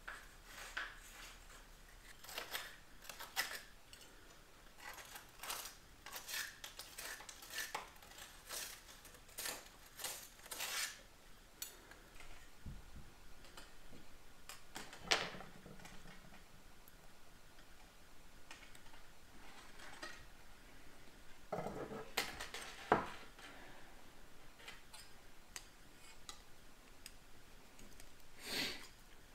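Metal clinking and scraping inside a wood stove as its jammed air damper is poked and dug at with a bent nail. There are many quick light clinks at first, then a few louder knocks later on.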